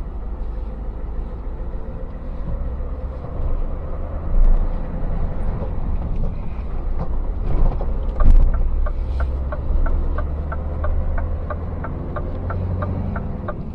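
Scania S650's V8 diesel engine running while the truck is driven, heard from inside the cab, with a couple of thumps. About eight seconds in, the turn-signal indicator starts ticking at about three ticks a second.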